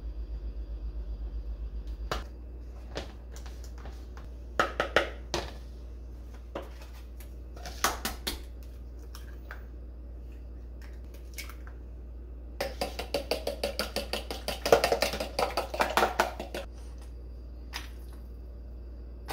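Kitchen food-prep handling sounds: scattered knocks and taps of jars and plastic containers on the countertop. Then, about two-thirds of the way in, some four seconds of quick, even strokes of a fork beating eggs in a plastic tub. A steady low hum runs underneath.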